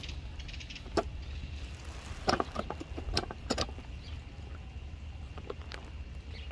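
Sharp clicks and taps from handling a baitcasting rod and reel: one about a second in, then a cluster between two and four seconds in. They sit over a steady low hum.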